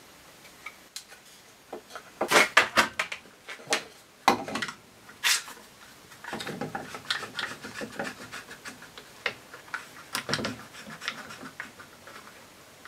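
One-handed quick-release bar clamps being fitted and tightened onto a small wooden box: sharp ratcheting clicks from the trigger handles, loudest in a cluster about two seconds in, with scraping and knocks of the clamps against the wood.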